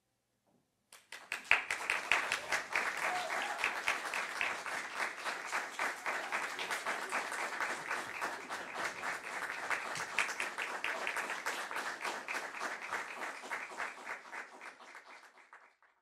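Audience applauding at the end of a chamber music performance: the clapping breaks out about a second in and fades out near the end.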